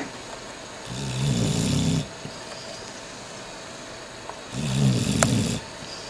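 Sleeping dog snoring: two drawn-out snores, each about a second long, roughly three and a half seconds apart, with a short sharp click during the second.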